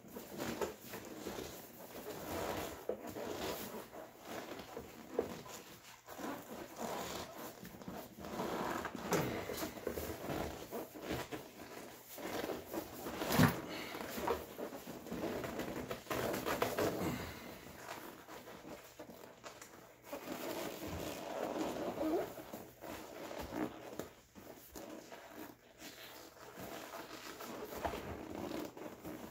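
A seat cover being stretched and worked by hand over a truck seat's foam and frame: irregular rustling, scuffing and rubbing of the cover material, with one sharp knock about 13 seconds in.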